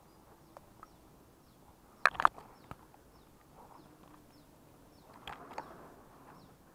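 A bird repeats a short, high chirp about twice a second. A few sharp cracks about two seconds in are the loudest sound.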